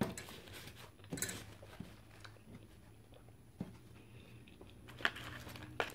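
Someone chewing a mouthful of Big Mac with closed lips: scattered soft wet mouth clicks and smacks over a faint steady room hum.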